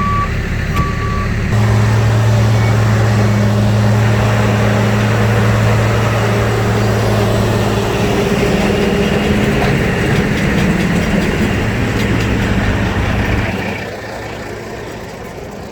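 A vehicle's reversing alarm beeps near the start, then a heavy construction vehicle's engine runs loud and steady with a low drone. The drone drops away a couple of seconds before the end.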